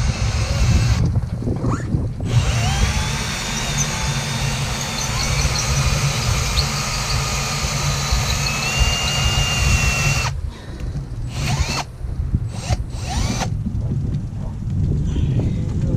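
Power drill boring into the sailboat's fiberglass hull for a through-hull fitting. It runs briefly, stops for about a second, then runs steadily for about eight seconds. Near the end it runs in several short on-off bursts.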